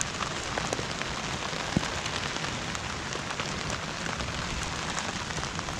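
Heavy rain falling steadily, with many separate drops striking close by.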